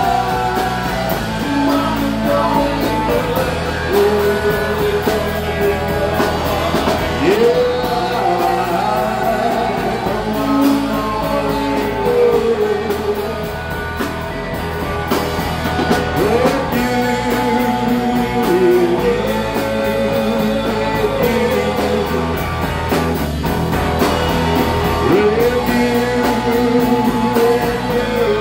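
Live rock band playing a slow song: electric guitar with sliding, bent notes over bass guitar and drums, with singing.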